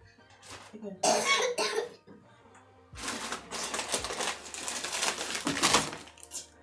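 A short cough about a second in, then about three seconds of rustling and clattering as shopping items are handled and set down.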